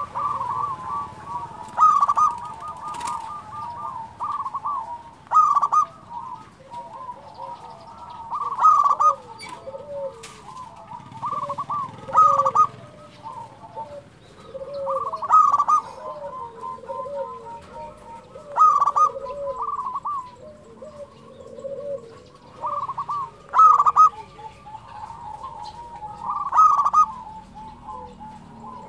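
Zebra dove (perkutut) singing persistently: a short phrase of rapid, staccato cooing notes about every three seconds, with softer, lower cooing notes between the phrases.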